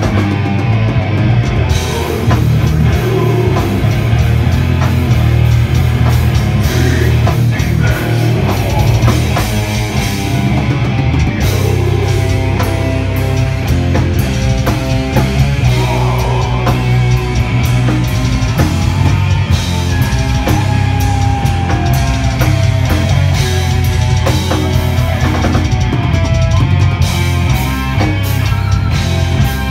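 Metal band playing live at full volume: distorted electric guitars, bass and a pounding drum kit.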